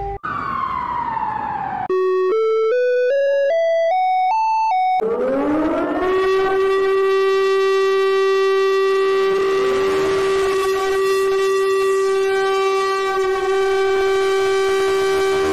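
Emergency alert siren tones. A falling tone comes first, then a quick rising run of about eight short stepped notes. Then a siren winds up and holds steady on one pitch until it cuts off.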